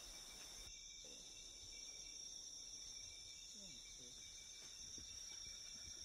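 Faint tropical rainforest ambience: a steady high insect drone, with a few faint low calls near the middle.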